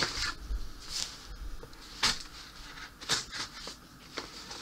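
A few short scrapes and taps, about one a second, as a small cardboard box is handled and shifted on a wooden table.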